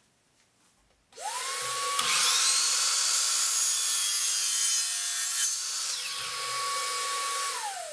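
Miter saw motor spins up about a second in, then its blade cuts through a luxury vinyl plank for about three seconds. The saw runs free for a moment, and near the end its whine falls as the motor winds down.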